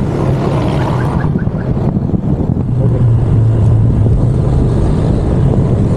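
Honda ADV150 scooter's single-cylinder engine running steadily while riding on the road, with wind rushing over the microphone.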